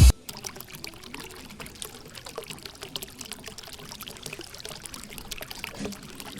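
A small stream of water pouring and trickling steadily, with many small splashes.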